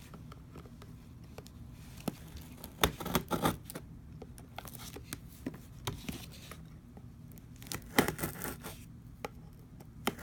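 The seal of a cardboard collectibles box being cut and torn open: short bursts of tearing and scraping with scattered clicks, loudest about three seconds in and again near eight seconds.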